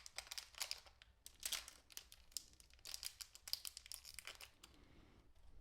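Quiet, irregular crinkling and clicking of small plastic parts handled by hand as control sticks are fitted to a radio-control transmitter, dying away about four and a half seconds in.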